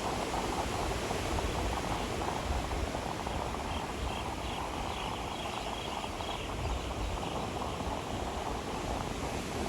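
Sea waves washing on a beach: a steady surf wash with a low rumble underneath. Between about four and six seconds in comes a faint, quick series of high chirps.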